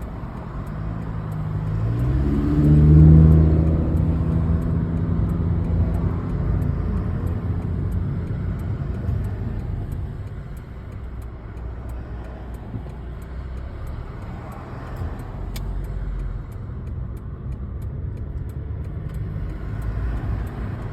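Car engine accelerating, its pitch and loudness rising for a couple of seconds, then settling into a steady cruise with road noise, heard from inside the car.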